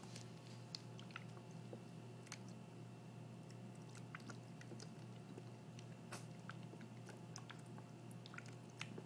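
A Persian cat's paw dabbling and scooping at the water in a gravity-fed pet water dispenser's bowl: faint, irregular wet clicks and small splashes, over a faint steady hum.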